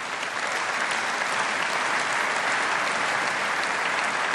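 A large assembly applauding, many hands clapping together; the applause builds in the first moments and then holds steady.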